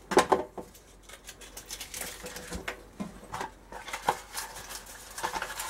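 Foil trading-card booster packs crinkling as they are cut open with scissors and handled: a loud crinkle just after the start, then irregular short crackles and clicks.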